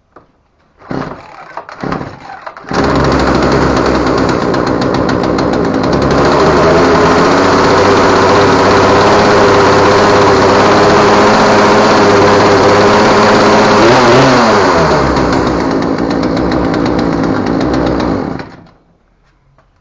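Poulan Pro PR4218 chainsaw's two-stroke engine, pull-started on a newly fitted spark plug: a couple of short pulls, then it catches about three seconds in and runs loud and steady at high revs. About fourteen seconds in the revs fall, and the engine shuts off shortly before the end.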